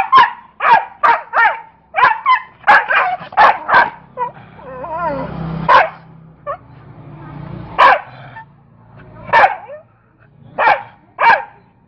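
A dog barking in a fight: a fast run of about ten sharp barks, then a longer wavering snarl-like sound about four to six seconds in, then single barks a second or two apart.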